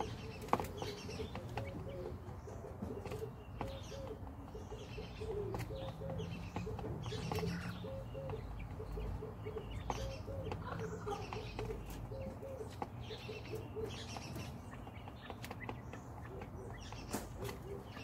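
Quails in a straw-bedded coop giving soft, short chirping calls over and over, with scattered sharp clicks and rustles as they peck and move in the straw.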